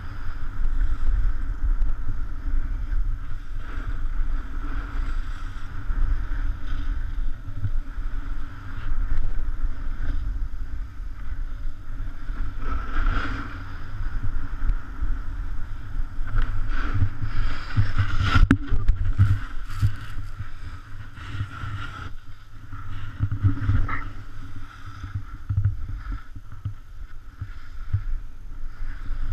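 Wind buffeting a moving helmet camera's microphone as a rider slides down a groomed ski run, with the hiss and scrape of edges on packed snow. A few sharp knocks come a little past the middle.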